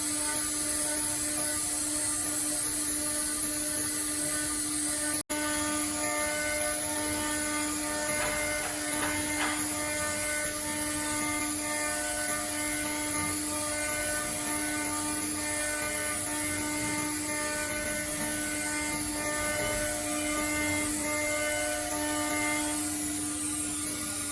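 ELE1325 ATC CNC router running, its spindle giving a steady high whine over a hiss of machining noise, with a split-second dropout about five seconds in.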